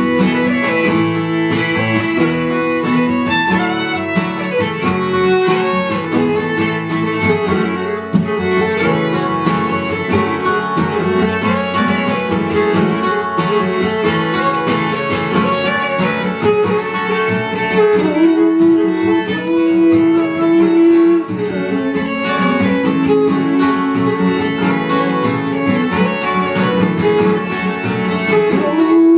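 Acoustic string band playing an instrumental break: a bowed fiddle melody over strummed and picked acoustic guitar.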